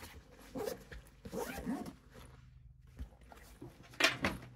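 Zipper on a K&F Concept 25 L camera backpack pulled in short runs, with the bag's fabric rustling as it is handled and turned over; the loudest, sharpest zip comes about four seconds in.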